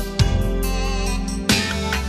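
Slow 1990s R&B ballad with no singing: sustained chords over a slow beat, with two drum hits about a second and a quarter apart.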